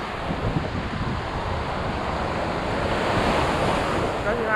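Surf breaking and washing up a sandy beach, the wash swelling about three seconds in, with wind buffeting the microphone.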